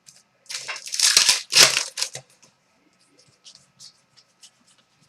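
Trading cards being handled and slid against one another: a few brisk rustling strokes in the first two seconds, then faint light ticks.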